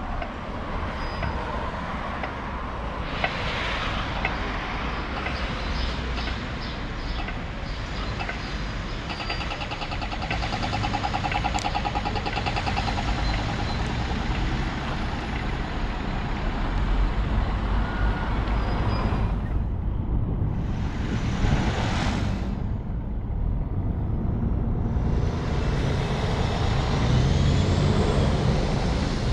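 Street traffic: a steady rumble of cars and a city bus passing. There is a patch of engine whine about a third of the way in, and short hisses early and about two-thirds of the way through.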